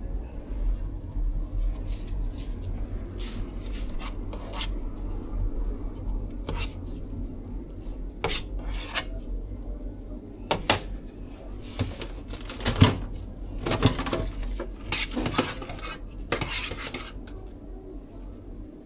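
Utensils and containers clinking and scraping as food is assembled, with a busier run of sharp clatter from about ten to seventeen seconds in, over a low steady hum.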